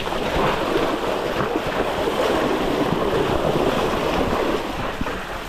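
Steady rushing noise of wind on the microphone.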